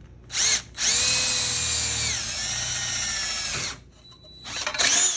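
Electric drill motor whining: a brief blip of the trigger, then a run of about three seconds whose pitch drops partway through as the drill slows under load, then another short blip near the end. This is the drilling of the hole for the 12 V power port in the power supply's case.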